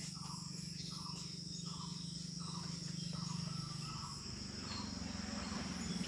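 Crickets trilling steadily, with short regular chirps about two or three a second through the first few seconds, over a low steady hum.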